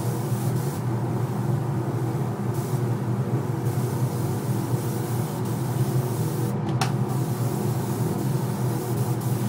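Pressure washer running steadily: a constant droning hum with the hiss of the water spray.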